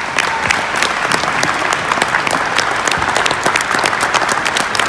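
Audience applauding, many people clapping steadily in a large hall to welcome a speaker to the podium.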